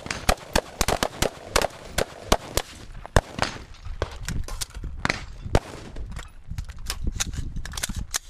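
Rifle fire from a line of several shooters: rapid, irregular shots overlapping one another, including an IWI Tavor bullpup close to the microphone. The shots come thickest in the first three seconds, then turn scattered.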